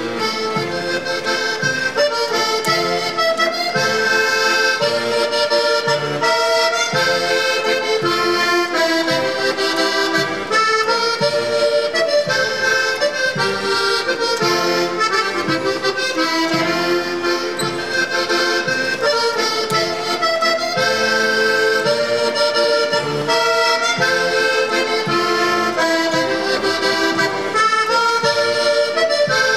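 Diatonic button accordion (durspel) playing a solo Norwegian folk dance tune: a moving melody over a steady, evenly pulsed bass-and-chord accompaniment.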